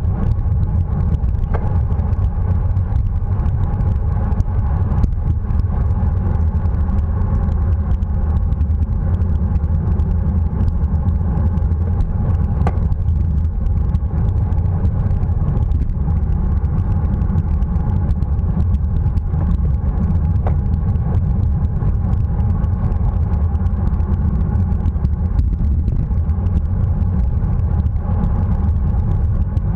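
Steady wind rumble on the microphone of a camera riding on a racing bicycle at speed, with road and tyre noise underneath.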